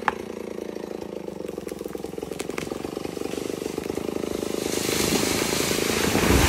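A chainsaw engine running steadily, then revving harder and louder about five seconds in, with a harsher hissing edge near the end. A short sharp click comes right at the start.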